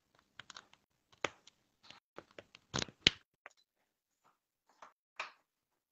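Handling noise: a scattering of taps, knocks and short rustles, with a sharp knock about three seconds in as the loudest.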